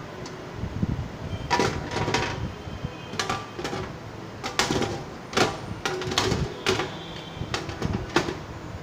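About ten irregular clicks and knocks of hard parts being handled, the sounds of working on a desktop computer.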